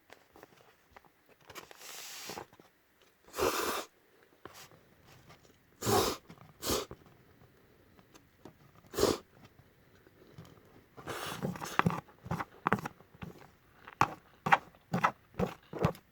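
Eating sounds of Peyoung instant yakisoba: separate short slurps and mouthfuls, then from about two-thirds of the way through a quicker run of wet chewing clicks.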